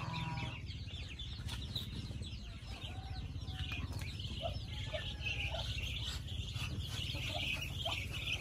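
A large flock of ducklings peeping all together, many short high-pitched cheeps overlapping, growing denser about halfway through.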